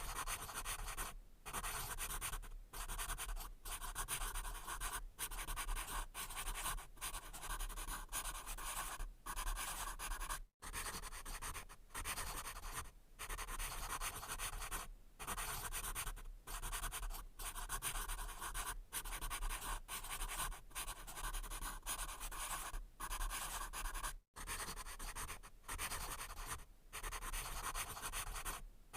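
Pencil writing on paper: a continuous run of scratchy strokes broken by short pauses between words, with two brief complete breaks about ten and twenty-four seconds in.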